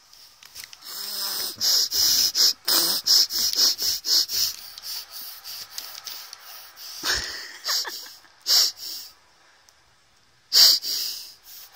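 A baby snorting and sniffing hard through her nose to clear it: a quick run of short sniffs, then a few louder, spaced-out snorts, the loudest near the end.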